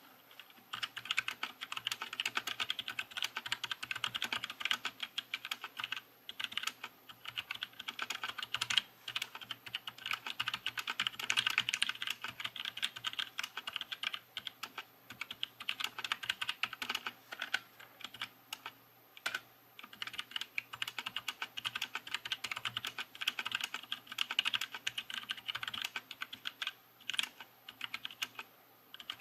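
Fast, continuous typing on a DZ60 mechanical keyboard fitted with jailhouse-modded Gateron blue switches, broken by a few brief pauses. Rubber spacers lock each switch's click jacket in place, so the keys clack with a cushioned, quieter bottom-out and no click.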